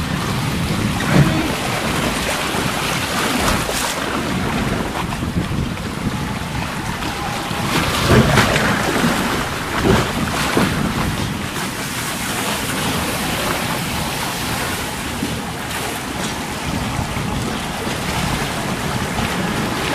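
Water rushing and splashing along a log flume channel as the ride boat runs down it, a steady, fairly loud wash that swells briefly about eight and ten seconds in.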